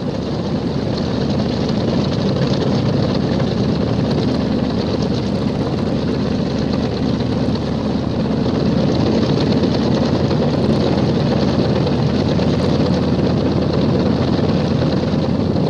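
Twin radial piston engines of a Tracker anti-submarine aircraft running steadily, with their propellers turning.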